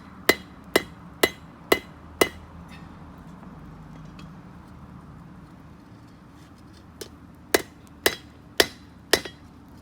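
Blacksmith's hand hammer striking hot steel on an anvil, each blow with a short metallic ring. It strikes five times at about two blows a second, pauses for about four seconds, then strikes five more times, the first lightly. The hammering is a forge-weld attempt on a broken blade fluxed with borax.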